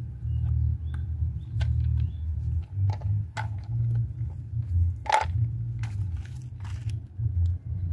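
A soapy wet rag wiping and scrubbing a motorcycle's plastic air-filter housing, heard as scattered short rubbing and handling strokes, the loudest about five seconds in, over a constant low rumble.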